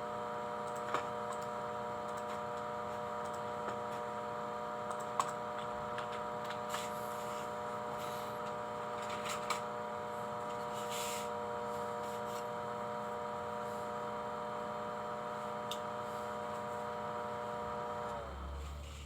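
Steady electrical hum of a small running device, made of several tones at once, with a few faint clicks; near the end the pitch slides down and the hum dies away as the device runs down.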